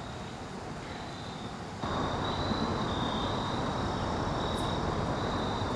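Outdoor ambience of insects singing in a thin, high, on-and-off trill over a steady background hiss. The hiss steps up suddenly about two seconds in and then holds steady.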